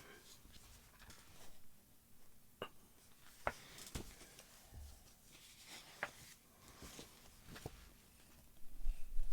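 Pages of a glossy booklet being turned and handled: soft paper rustles with a few light taps and clicks, then a low rumbling handling noise near the end.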